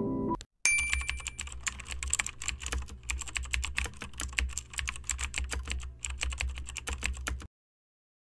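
Rapid, irregular clicking like typing on a computer keyboard, over a low steady hum, with a brief high tone as it begins. It stops abruptly near the end.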